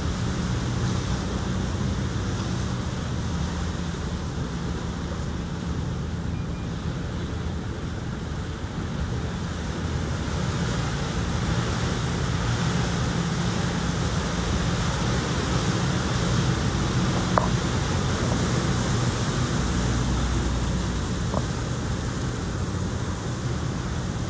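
A canal tour boat's engine running steadily under the rush of water along the hull, with wind buffeting the microphone. One light click two-thirds of the way through.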